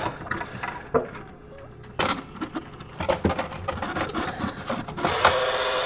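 Plastic clicks and knocks as a refrigerator's damper control housing is worked loose by hand. About five seconds in, a steady buzzing hum starts from the exposed damper control and keeps going. This is the noise of a worn-out damper control.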